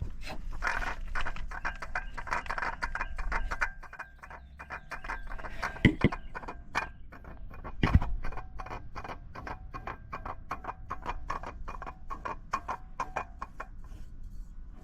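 A spin-on oil filter being threaded onto its post by hand on a Toyota 1MZ-FE V6. It makes a steady run of small clicks, scrapes and faint squeaks, with two louder knocks about six and eight seconds in.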